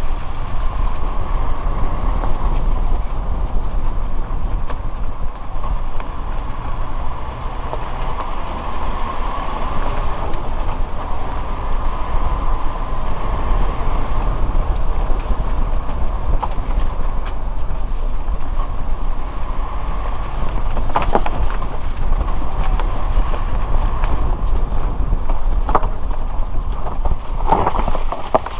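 Suzuki Jimny driving: steady engine and tyre noise with a low rumble, dotted with frequent small knocks and rattles. There are a few sharper knocks about two-thirds of the way in and near the end.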